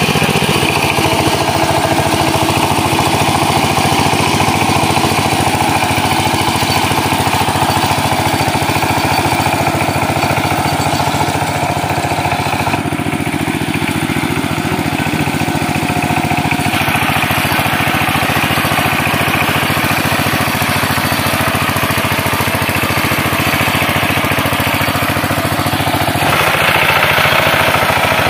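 Two-wheel power tiller's single-cylinder diesel engine running steadily under load while tilling a flooded paddy field. Its sound changes abruptly a few times.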